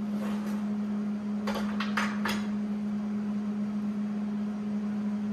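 Steady electrical hum of a MIG welder standing ready, with a few light clicks and taps of steel between about one and a half and two and a half seconds in, while the torch is set against the workpiece before the arc is struck.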